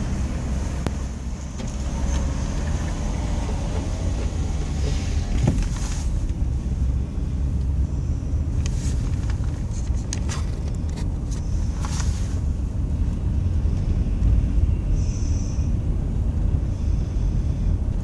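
Steady low road rumble inside a vehicle cabin as it drives slowly on an icy, slushy interstate, with a few sharp clicks about halfway through.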